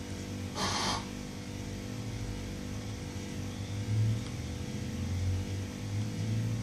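Steady low electrical hum, with a short burst of television sound cutting in and off about half a second in as the channel changes.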